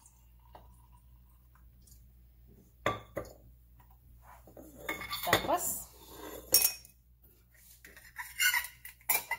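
Glass and metal clinking and clattering as glassware and a mason jar's metal lid with a straw are handled on a stone countertop. Two sharp knocks come about three seconds in, a busier clatter around five to seven seconds, and more clinks near the end.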